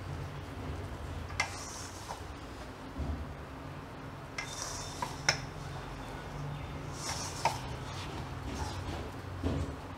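Hand mixing grated bottle gourd into dry wheat flour in a stainless steel bowl: soft rustling and squishing, with a few sharp clicks of metal on the bowl, over a low steady hum.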